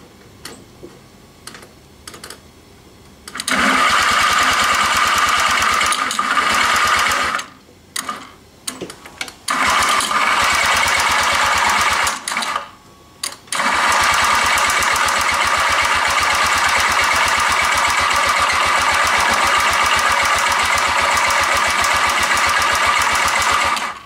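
Honda Giorno Crea AF54 scooter's two-stroke 50cc engine starting after a few faint clicks and running loudly and evenly. The sound falls away twice for a second or two and picks up again, then runs steadily. This is the faulty engine, whose noise is put down to worn crankshaft bearings.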